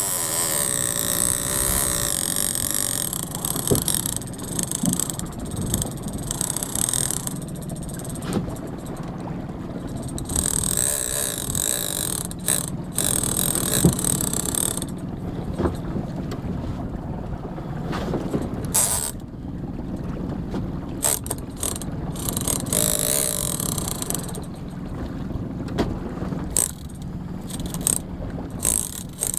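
Lever-drag big-game fishing reel (Shimano Tiagra 30W) worked under load from a hooked bluefin tuna: a run of mechanical gear and ratchet clicks as the line is worked.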